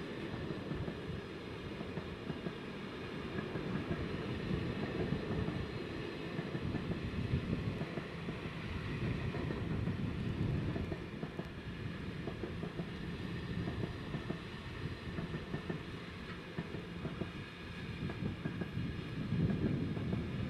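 A long intermodal container train's flat wagons rolling past at steady speed. Continuous wheel-on-rail rumble and clatter swells and eases as the wagons go by.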